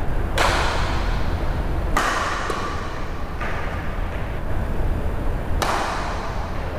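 Badminton racket strings hitting a shuttlecock three times in a rally: sharp smacks, the first two about a second and a half apart and the third some three and a half seconds later, each echoing in a large hall. A steady low hum runs underneath.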